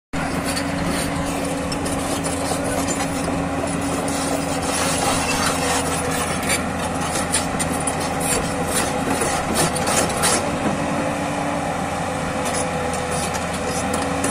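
JCB NXT crawler excavator's diesel engine running steadily, with a constant hum and whine. A few light clicks and knocks come through around the middle.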